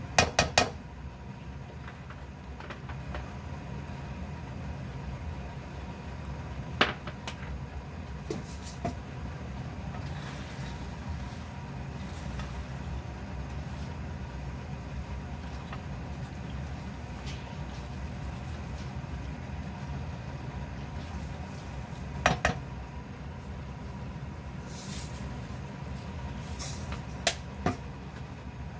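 Steady low kitchen hum, with a few sharp knocks of a silicone spatula against a nonstick frying pan while a stir-fry is stirred. There is a quick cluster of knocks at the start, single ones about 7 seconds and 22 seconds in, and a couple more near the end.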